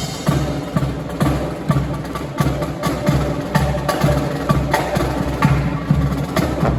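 Marching band drum section playing a percussion-only break: snare and bass drums striking a steady beat, with the brass silent.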